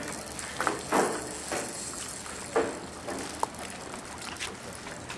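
Open-air seaside ambience: a steady hiss of wind and surf, broken by several short, sharper sounds.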